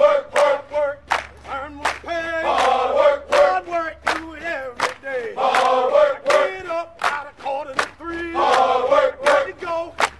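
Background music: group vocals singing together over sharp, regular percussive beats.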